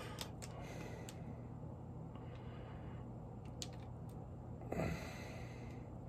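Quiet room tone with a steady low hum and a few faint clicks, and a short sigh about five seconds in.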